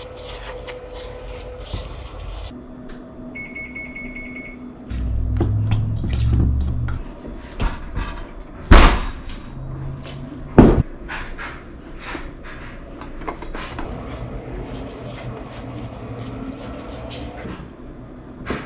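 Kitchen prep sounds: a spatula scraping and tapping dough in a stainless steel mixing bowl, then hands mixing in a glass measuring cup, with scattered taps and knocks of utensils and dishes on the counter. About halfway through come two loud knocks a couple of seconds apart, and a brief high tone sounds about three seconds in.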